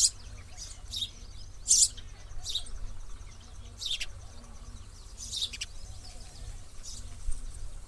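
Sparrow chirping: about ten short, sharp chirps at irregular gaps of half a second to a second and a half, some falling in pitch, the loudest near two seconds in. A steady low rumble runs underneath.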